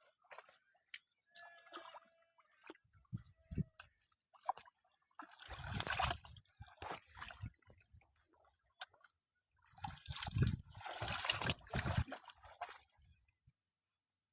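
Shallow pond water sloshing and splashing in short bursts, with two longer bouts of heavy splashing about five and a half seconds in and again about ten seconds in.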